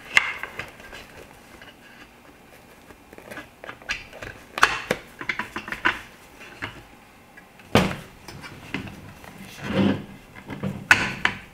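Scattered clicks and knocks of a plastic mounting bracket and its screw posts being fitted onto a clamshell reflector's frame, with handling noise as the reflector panel is moved.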